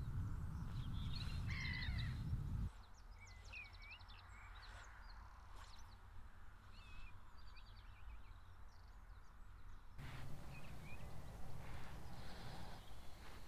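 Outdoor lakeside ambience. For the first few seconds a low rumble of wind on the microphone runs under a crow cawing. The sound then drops much quieter, with small birds chirping and trilling, and the low rumble returns near the end.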